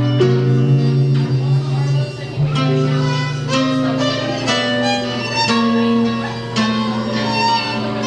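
Live band playing an instrumental passage: guitar with long held melody notes over it that change pitch every second or so.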